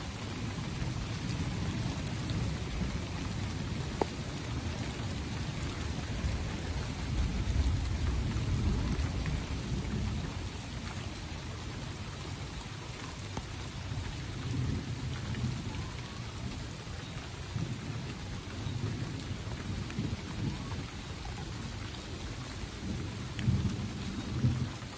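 Wind buffeting the microphone: a gusty low rumble that swells and fades, with a sharp click about four seconds in and two louder bumps near the end.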